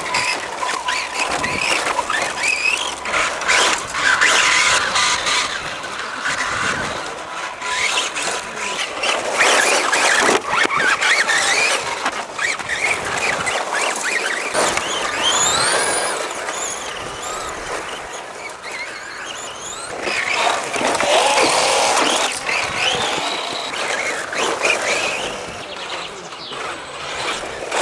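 Electric radio-controlled rally cars driving hard over a gravel and dirt track: the motors whine, rising in pitch as the cars accelerate, over the scrabbling of tyres on loose gravel. The sound swells and fades as cars pass.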